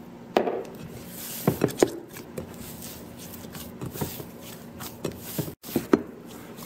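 Hands kneading a soft dough in a glass bowl: irregular squishing and knocking at uneven intervals, with a sharper knock about half a second in.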